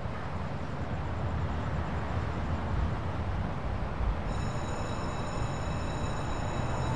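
Steady low rumbling ambience with a haze of noise, like a distant train or heavy traffic. Faint high steady tones enter about four seconds in.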